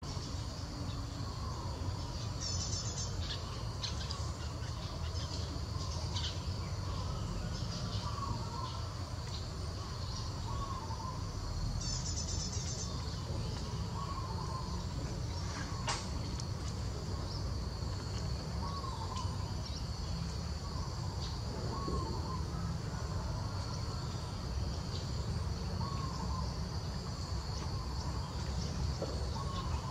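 Outdoor ambience: a steady high insect drone with a short call repeated every two to three seconds, two brief high chirping trills, and a low rumble underneath.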